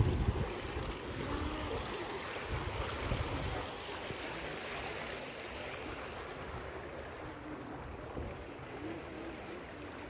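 Shallow water running steadily over travertine terraces, a continuous hiss of flowing water, with a low rumble through the first three or four seconds.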